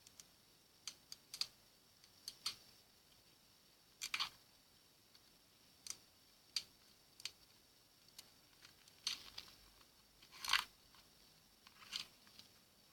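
Slime being squeezed and pressed, giving irregular short sticky pops and clicks, with one longer, louder squish late on.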